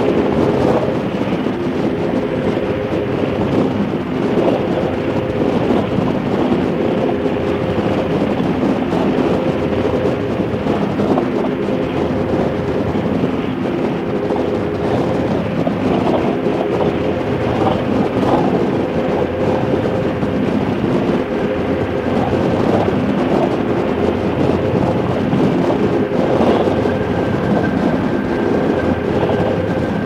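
Harley-Davidson V-twin motorcycle engine running at a steady cruising speed, with wind rushing over the microphone.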